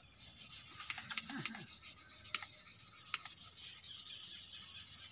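Sandpaper rubbed back and forth by hand on a metal part of an excavator hydraulic boom cylinder, in quick repeated strokes, to smooth a rough spot before the new seals go on. A couple of sharp metallic clicks come about halfway through.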